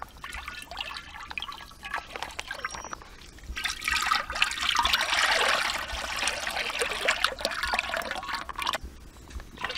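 Sunflower oil pouring from a plastic pouch in a thin stream into a large metal uruli, trickling and splashing on the surface. The stream gets louder a few seconds in, breaks off briefly near the end, then starts again.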